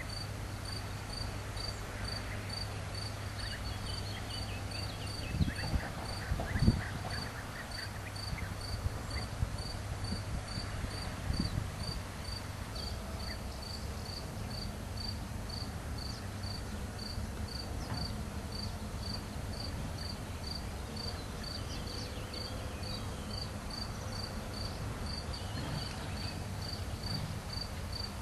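Insect chirping in a steady, even rhythm, about two high chirps a second, over a low hum. A few low thumps come about five to seven seconds in.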